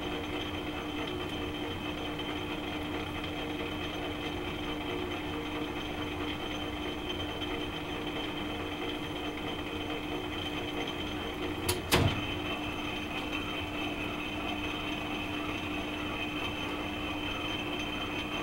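Metal lathe running steadily as it turns an aluminium silencer body under flowing coolant: a steady hum with a higher whine above it. A sharp double knock about two-thirds of the way through is the loudest sound.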